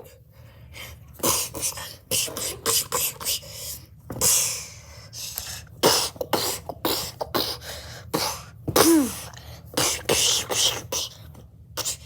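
Mouth-made fight sound effects: quick, irregular hissing whooshes and percussive hits and pops, with a few short vocal grunts.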